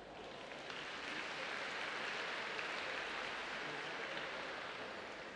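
Applause from a small crowd of spectators, swelling about a second in and fading near the end.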